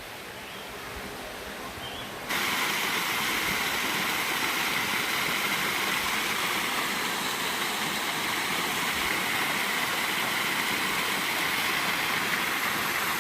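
Rushing water of a creek cascade: a steady, even hiss that jumps abruptly louder a little over two seconds in and then holds level.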